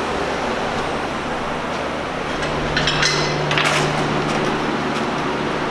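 Light metallic clinks and rattles, a cluster about three to four seconds in, as a strut with its coil spring is handled into a wall-mounted spring compressor, over a steady low hum of shop background noise.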